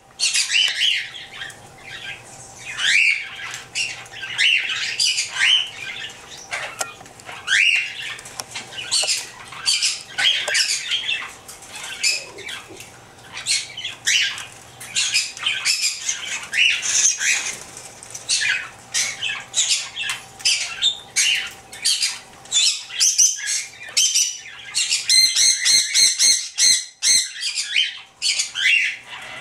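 Several cockatiels chirping and squawking almost without pause in many short, shrill calls. About five seconds before the end comes a quick run of evenly repeated notes.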